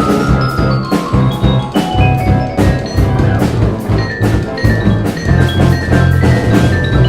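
Percussion ensemble playing a jazz-fusion tune: drum kit hits under a busy bass line, with quick melodic notes from mallet percussion and steel pan.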